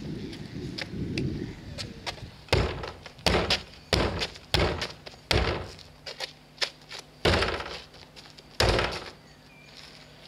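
A series of heavy, hollow thuds against a large plastic wheeled waste container, about seven blows spread irregularly over several seconds.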